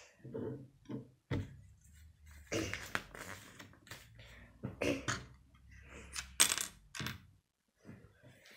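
Plastic Lego bricks clicking and tapping against each other and the wooden tabletop as pieces are picked up and pressed onto a model car: a string of sharp, irregular clicks, the loudest a little past six seconds in.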